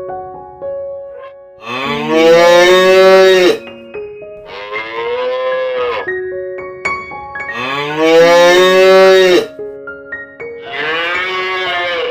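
Four long, drawn-out animal calls, each rising then falling in pitch, the second one quieter, over background music with piano notes.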